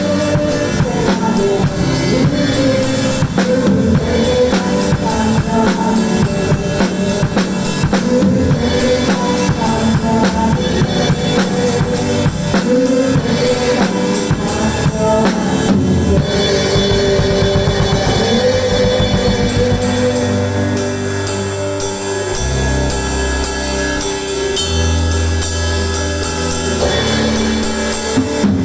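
Drum kit played along to a full-band Korean praise song, with bass drum and cymbals driving a steady beat under guitar and melody. For the last several seconds the drumming thins out to sustained bass notes.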